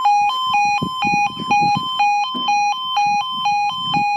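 UK level crossing's electronic two-tone warning alarm sounding, alternating between a lower and a higher tone a few times a second, warning road users that the crossing is closing for an approaching train.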